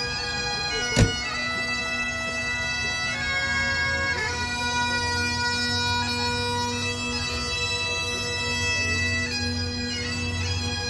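Bagpipes playing a tune over their steady drones, with a sharp click about a second in.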